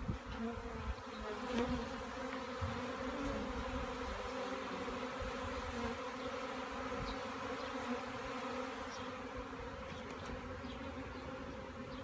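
A swarm of honeybees in flight, buzzing as one steady hum. There is a brief bump about a second and a half in.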